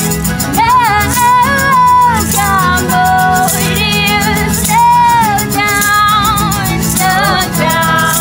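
Live acoustic pop song: a woman singing the lead melody over strummed acoustic guitars, with a handheld tambourine shaken in a steady beat and other voices singing along.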